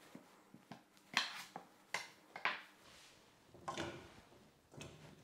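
Broth vegetables (potato, carrot, onion) handled and dropped into a stainless steel pot of water: a handful of short, sharp knocks and clatters, then two duller, softer sounds near the end.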